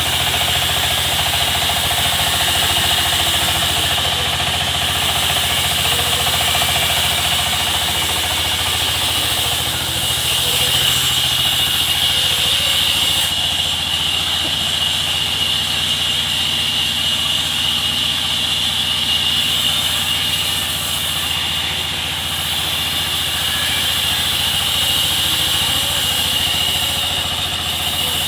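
Sawmill machinery running steadily: a continuous engine hum with a steady high hiss on top.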